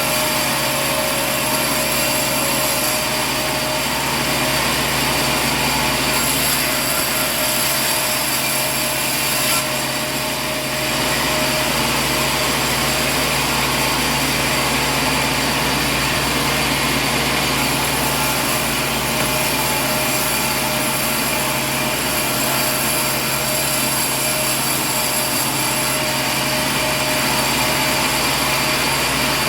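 Steady, loud machine drone: dense even noise with several steady whining tones on top, dipping slightly for a moment about ten seconds in.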